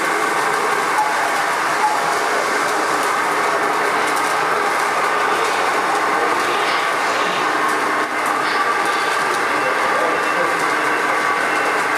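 Steady mechanical whirring and rumbling of radio-controlled scale model trucks driving.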